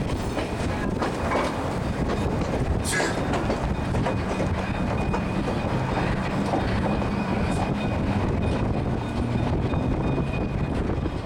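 Durango & Silverton narrow-gauge steam train running along the track, the steady rumble and clatter of the coaches' wheels on the rails, heard from an open coach window as the train rounds a curve.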